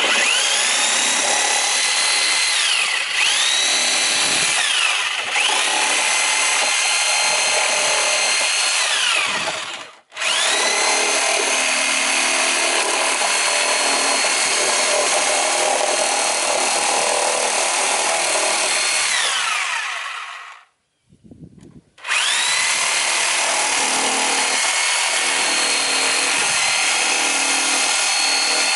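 Corded power tool cutting a coop basket: its motor whines up to speed and sags in pitch twice under load a few seconds in. It stops for an instant about ten seconds in and runs on. It winds down about twenty seconds in, then starts up again after a short pause.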